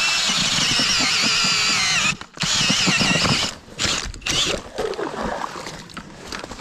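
Power ice auger boring a hole through lake ice: a loud, high grinding whine for about two seconds, a short break, a second run of about a second, and a brief third burst a little later.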